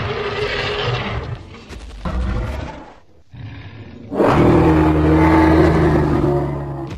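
Film-style dinosaur roar sound effect: a rough roar at the start, then a long, loud roar with a steady low pitch from about four seconds in, fading near the end.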